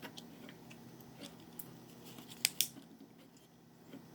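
Small clicks and taps from handling test leads and capacitors on a TV chassis, with two sharper clicks close together about two and a half seconds in, over a faint steady low hum.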